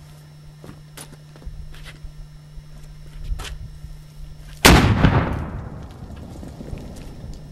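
A 20 mm breech-loading cannon fires a 3 oz charge of FFF black powder with a steel projectile: one sudden, relatively loud boom about four and a half seconds in, dying away in a low rumble over a second or two.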